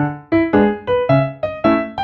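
Background music: a bright piano or keyboard melody of short, plucky notes at a brisk, bouncy pace.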